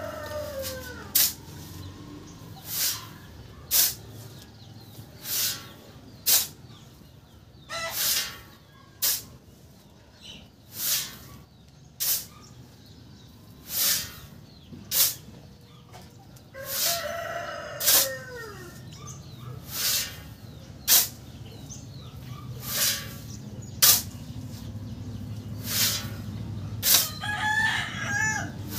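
A steel shovel scooping and tipping sand, repeated scrapes and knocks about once a second. A rooster crows near the start and again about 17 s in, and a chicken calls near the end.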